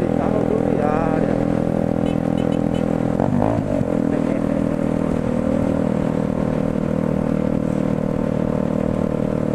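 Motorcycle engine running steadily at cruising speed over a constant hiss of wind and wet road. The engine note dips and comes back up briefly about three and a half seconds in.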